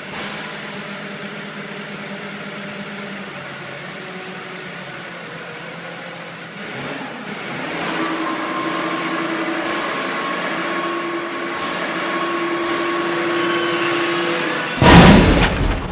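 Heavy machinery running with a steady hum and several held tones that shift in pitch, growing louder about eight seconds in. About a second before the end comes a sudden, very loud crash.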